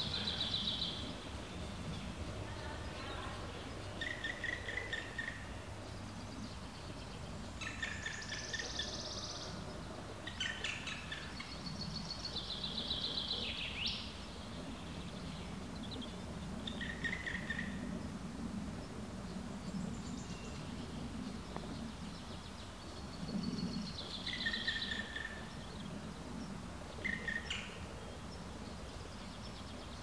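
Black woodpecker nestling at the nest hole giving repeated begging calls: short rapid bursts a second or so long, every two to four seconds, over a steady low background noise.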